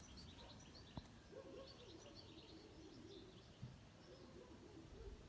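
Near silence with faint birds chirping in the background, and a single light click about a second in.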